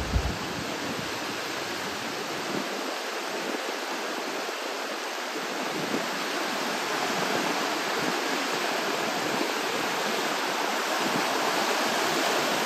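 Sea surf breaking and washing over the shallows: a steady rush of water noise that grows a little louder toward the end.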